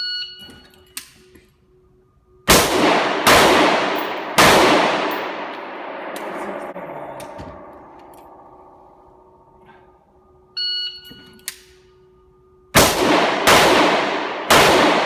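Shot timer beeps, and about two seconds later an AR-15 in .223 fires three quick shots that echo long off the concrete of an indoor range. The beep and the three-shot string come again about ten seconds in, the last shot near the end.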